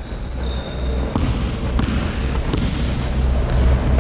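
A basketball being dribbled on a hardwood gym floor, with a few short sneaker squeaks in the second half.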